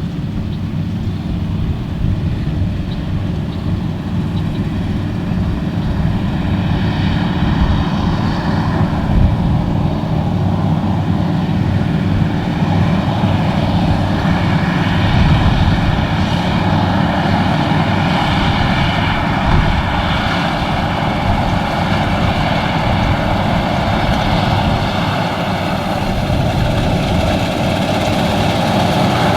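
AGCO Gleaner R62 rotary combine's air-cooled Deutz V8 engine running steadily under load while harvesting wheat. It makes a continuous low rumble with a high whine mixed in from about six seconds in, and grows a little louder toward the end.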